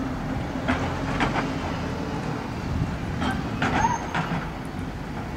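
Narrow-gauge electric tram pulling away along the track, with a low running rumble and sharp wheel clicks over the rail joints and points.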